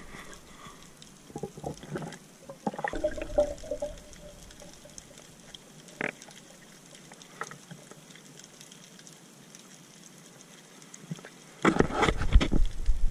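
Water heard through a submerged camera: scattered knocks and clicks in the first few seconds and a single sharp click midway, then near the end a sudden loud churning rush of water with rapid thumps.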